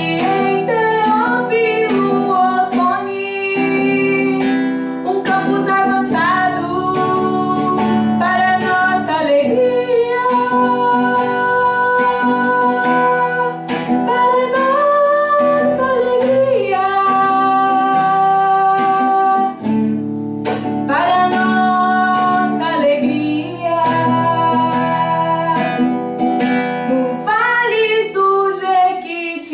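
A man singing a song while strumming a nylon-string acoustic guitar.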